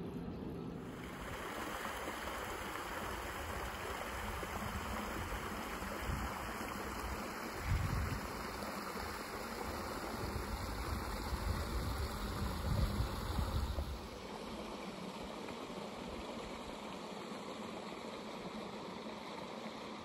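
Steady rushing of a shallow stream flowing over stones. In the middle stretch there are low, irregular rumbles of wind buffeting the microphone, which stop about two-thirds of the way through, leaving a slightly quieter rush.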